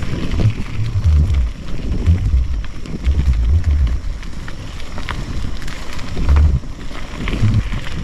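Mountain bike rolling along a dirt trail, with wind rumbling on the microphone in uneven gusts and scattered clicks and rattles.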